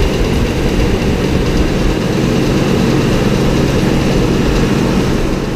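Feed grinder and the tractor engine driving it, running steadily at a loud drone with a deep hum while grinding feed.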